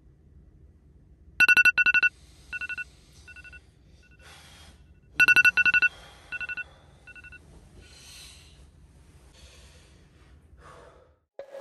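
A wake-up alarm beeping in a repeating pattern: a loud cluster of rapid high beeps followed by fainter, fading repeats, heard twice. Soft rustles of bedding come between the beeps and later on.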